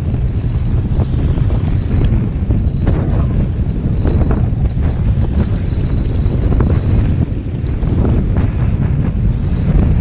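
Strong wind buffeting the camera microphone in a loud, steady rumble, with choppy sea splashing around the kayak.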